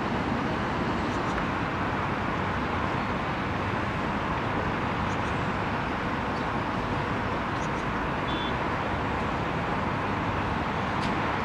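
Steady, unbroken city traffic noise heard from a height, a constant wash of road noise with no single vehicle standing out. A brief high squeak sounds about eight seconds in.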